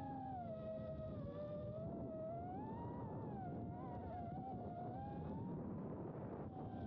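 Emax Babyhawk 2 HD FPV quadcopter's brushless motors and propellers whining in flight, the pitch rising and falling with throttle, over a low rumble of wind on the microphone.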